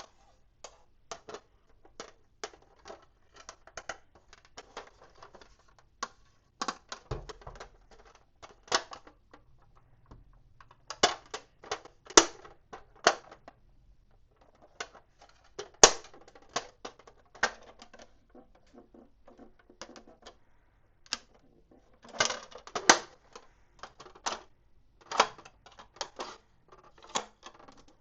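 Small plastic toy pieces and packaging being handled close to the microphone: irregular sharp clicks and taps, with short stretches of light rustling between them.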